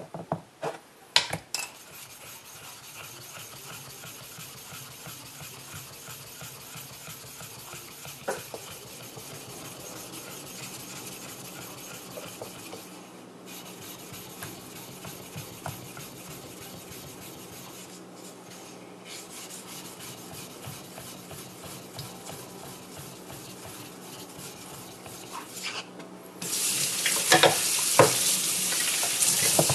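Wet 6000-grit synthetic whetstone being lapped flat by hand, a steady gritty rubbing of back-and-forth strokes that stops briefly twice. Near the end, a louder hiss of running water takes over.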